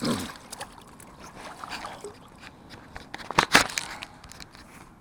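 Water splashing and sloshing close by as a small brown trout is landed, with a sharp splash at the start and the loudest splash about three and a half seconds in.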